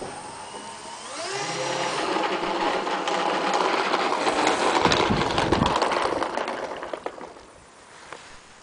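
Four brushless electric motors and propellers of a foam RC C-130 Hercules model: a whine that rises in pitch about a second in as the throttle comes up, runs steadily while the model taxis, then dies away near the end as power is cut.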